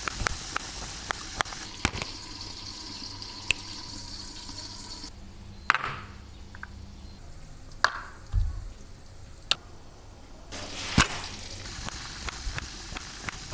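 Kitchen cooking sounds in short cut-together clips: scattered sharp knocks and clicks of utensils, over a steady hiss that drops away abruptly about five seconds in and returns about ten and a half seconds in.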